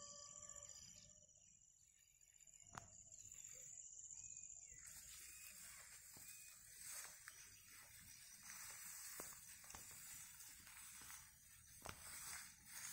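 Near silence: faint outdoor background with a steady high hiss and a few soft clicks.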